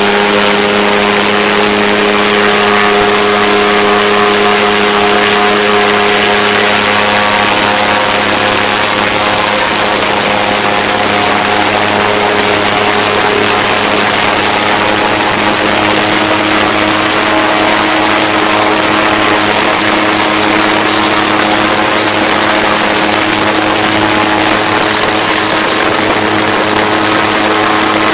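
Airboat's engine and air propeller running steadily at cruising speed, loud and even in pitch, over a broad rushing hiss.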